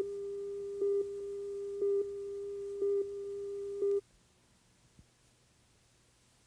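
A steady electronic tone with a louder beep about once a second, cutting off suddenly about four seconds in; after it, near silence with a faint click.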